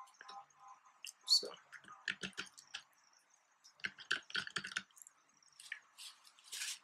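Light clicks and taps of a small glass bowl and a plastic pH meter being handled on a tabletop, in two quick runs, then a short rustle near the end.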